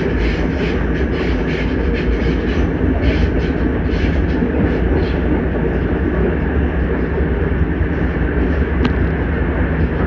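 LIRR M7 electric multiple-unit cars running, a steady low rumble with a rapid, even clicking of about three to four a second that fades out about halfway through. A single sharp tick comes near the end.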